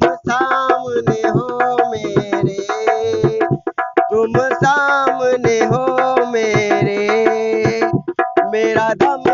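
Dholak drumming in a fast, busy rhythm under a melody, part of a devotional song; the playing drops out briefly twice.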